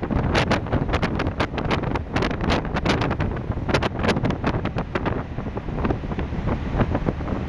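Wind buffeting the microphone in sharp crackles, which thin out about five seconds in, over the steady low rumble of a small CalMac car ferry under way.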